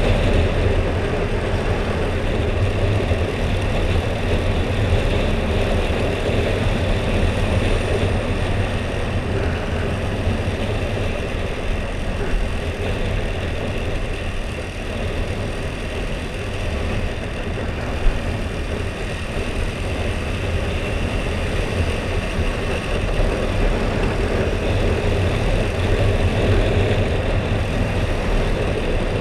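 Husqvarna Svartpilen 401's stock single-cylinder engine running steadily while riding, with road and wind noise. A single short sharp click about two-thirds of the way through.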